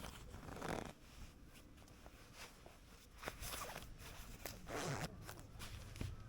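Quiet handling sounds: a few short rustling swishes and scattered light clicks.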